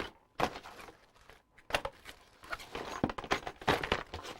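Packaging rustling and crinkling as hands rummage through a box of motherboard accessories, with a few sharp handling knocks.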